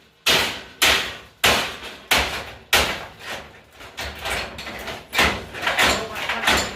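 A hammer striking a broken Kitchen Master 3-in-1 oven again and again: about a dozen hard blows, roughly one every half second, each dying away quickly.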